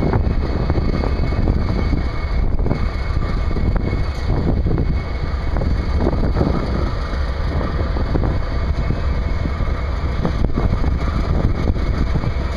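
Diesel-electric locomotives idling with a steady low rumble, mixed with wind buffeting the microphone.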